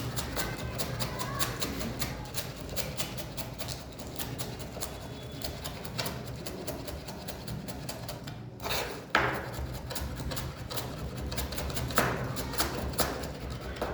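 A knife chopping on a cutting board in a quick, steady rhythm, about four strokes a second, with a short pause about two-thirds of the way in and a few harder strokes after it.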